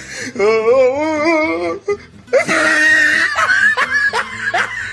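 A person's voice wailing with a wobbling pitch for about two seconds, then a shrill squeal that breaks into quick, rising bursts of laughter.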